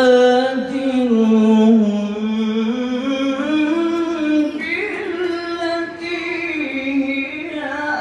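A male qari reciting the Qur'an in the melodic tilawah style, drawing out a long ornamented phrase that wavers and slides in pitch, with a new onset about halfway through.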